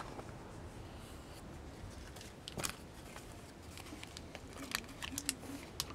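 Low, steady rumble inside a moving car's cabin, with a few small clicks and rustles scattered through it.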